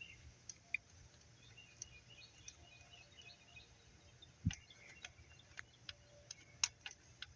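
Faint, sparse clicks of a socket and extension on a loosened water outlet bolt being turned out by hand, with a soft knock about four and a half seconds in. Faint bird chirps in the background.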